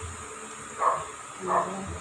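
A dog barking twice, about a second in and again just over half a second later.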